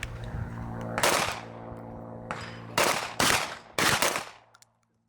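Gunshots from several shooters firing single rounds at their own pace on a firing line, each shot ringing out briefly. There is one shot about a second in, then four in quick succession between about three and four seconds in. A steady low hum runs underneath.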